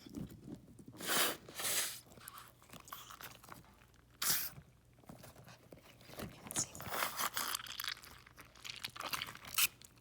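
Hands digging through the small balls of filling from a cut-open plush toy, crunching and rustling in irregular bursts. The loudest come a little after a second in and just past four seconds.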